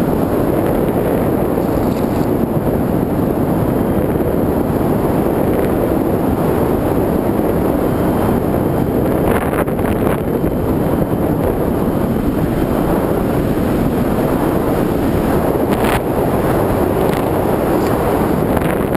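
Steady rush of wind and propeller noise from a radio-controlled model plane in flight, picked up by a camera mounted on the plane. The noise holds even throughout, with no changes in throttle.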